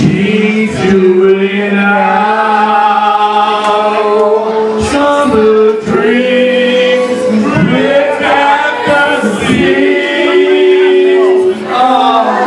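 Karaoke singing: several amateur voices singing together through microphones over backing music.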